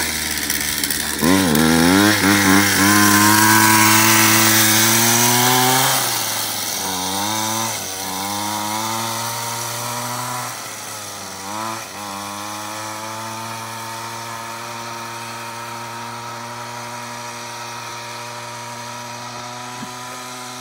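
Weed whacker engine driving a chain-drive milk-crate go-kart: it revs up about a second in and holds high revs, eases off and picks up again twice, then runs at steady revs while growing fainter as the kart pulls away.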